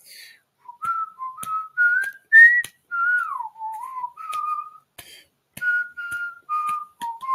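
A person whistling a tune: a string of short notes stepping up and down, with a gliding drop in pitch about three seconds in.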